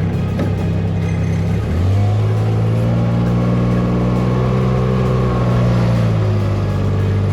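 A motor vehicle engine running under load. Its pitch steps up about two seconds in as the revs rise, then holds steady.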